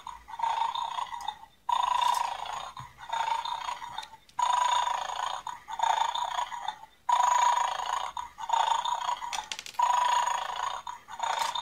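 Toy dog from a 'feed the dog a bone' game snoring through its small speaker: a looped snore repeating about every second and a half with short gaps, tinny with no bass.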